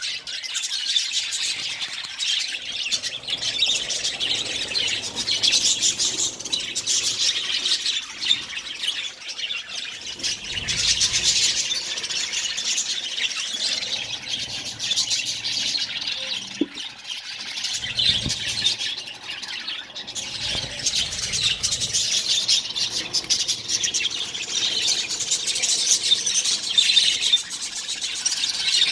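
Colony of budgerigars chattering and squawking, many overlapping high-pitched calls without a break.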